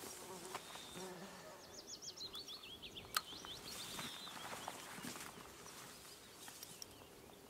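A songbird sings a short, fast phrase of high, sweeping notes from about one and a half to three seconds in, over faint rustling footsteps through grass and sedge. A single sharp click comes just after three seconds.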